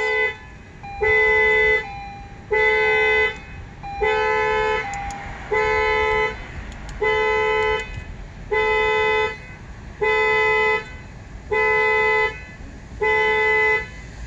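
Car's electronic warning beeper sounding a long, even beep about every one and a half seconds, over and over, with the ignition switched on.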